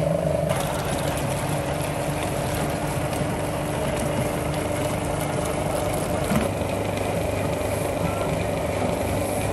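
A machine running with a steady, even hum.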